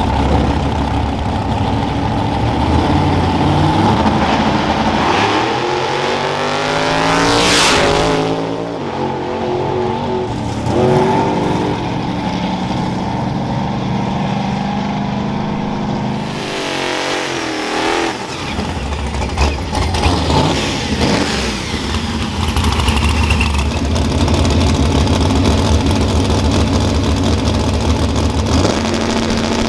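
Drag-racing cars in an all-motor class revving at the start line, then launching at full throttle about seven seconds in, their engine pitch climbing sharply and then dropping away as they run down the track. A second burst of engine sound comes around sixteen seconds, and after it cars are heard rumbling at the line.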